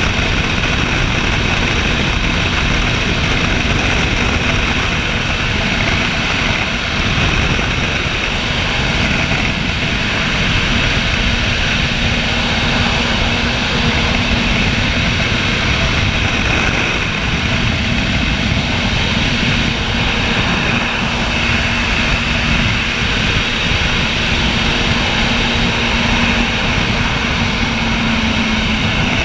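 Vertical wind tunnel's fans driving a column of air, heard from inside the tunnel as a loud, steady rush of wind. A low hum and a high whine run through it.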